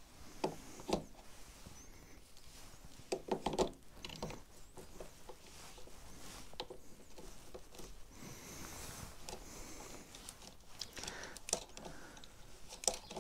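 Scattered plastic clicks and knocks as a phone cradle is unclipped from a motorcycle's navigation mount and a BMW Nav 6 sat-nav is seated in the mount. The loudest cluster of knocks comes about three to four seconds in.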